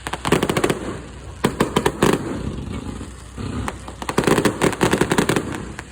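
Fireworks going off in several bursts of rapid, sharp pops and crackles, with short lulls between the clusters.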